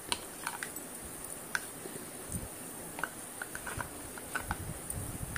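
Steel spoon stirring gram-flour batter in a plastic bowl: scattered light clicks and taps of the spoon against the bowl.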